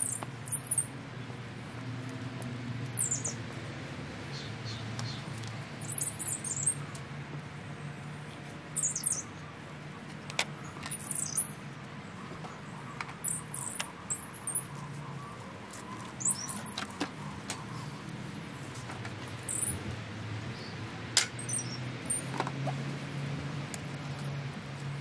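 Garden birds chirping: short, very high-pitched falling calls every second or two, over a low steady hum, with a few sharp clicks.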